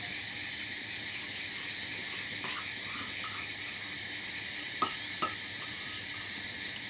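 A steel bowl knocked twice against a metal kadai, two sharp metallic taps a little under five seconds in, as sugar is tipped into milk simmering on a wood fire. A steady high chirring of insects runs underneath.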